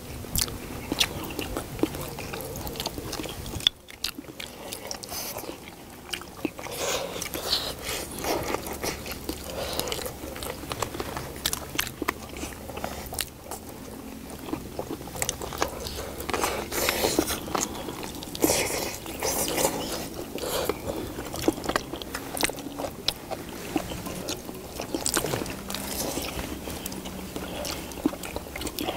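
Several people chewing and biting into pieces of spicy braised chicken on the bone, with scattered small clicks throughout.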